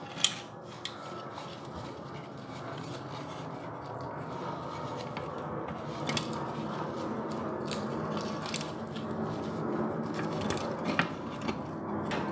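Toilet tissue rustling and rubbing against a small vacuum cleaner motor as it is wiped and turned in the hands, with a sharp click just after the start and a few lighter knocks of handling.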